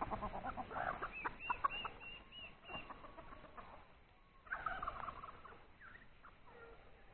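Free-range chickens clucking and calling, with a run of short repeated calls about a second in and another burst of calling about four and a half seconds in, then quieter clucking.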